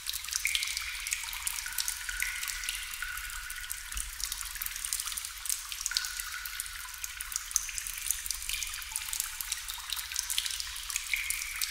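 Water drops falling into water: a dense, irregular patter of small drips and plinks, many of them with a brief ringing pitch.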